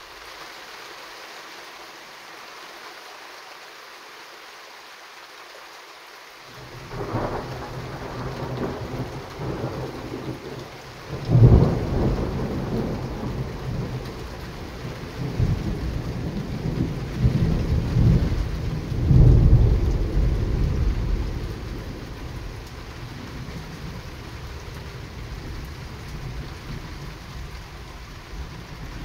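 Steady rain with a long roll of thunder. The rumble begins about a quarter of the way in, peaks in one loud clap a little before the middle, swells again several times, and fades out over the last third.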